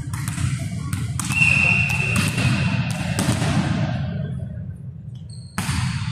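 Volleyball bounced several times on a sports-hall floor before a serve, with a referee's whistle sounding one steady note for about a second and a half, then the sharp hit of the serve near the end. Low hall noise runs underneath.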